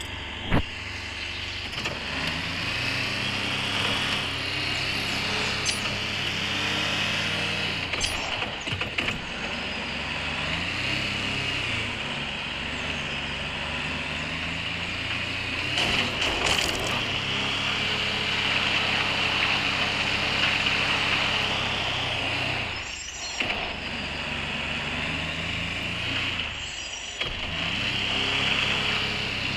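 A 4x4's engine running while driving off-road, its revs stepping up and down several times over a steady hiss of wind and tyre noise, with two brief drops near the end.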